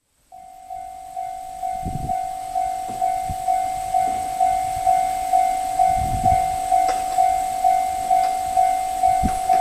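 Railway level-crossing warning bell ringing, an electronic ding repeating evenly about twice a second. It starts just after the beginning and warns of an approaching train. A few low thumps sound under it.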